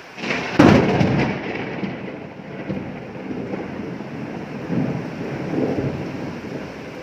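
A sharp thunderclap about half a second in, then thunder rumbling on in low swells over steady rain.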